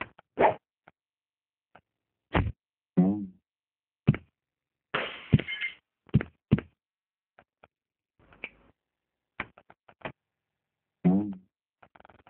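Cartoon fight sound effects: a string of separate hits and thwacks with short swishes, twice a brief sound falling in pitch, and a longer rushing burst about five seconds in, with dead silence between them.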